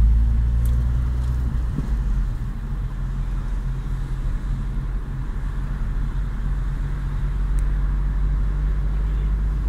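Car engine and tyre noise heard from inside the cabin while driving, a steady low drone.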